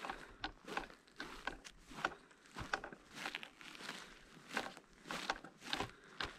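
Footsteps walking through dry mountain grass, a crisp rustle with each step, about two steps a second.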